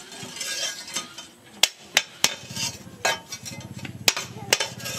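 Rusty steel chainsaw bar knocked and scraped against a steel post anvil: several sharp metallic clanks, with scraping between them.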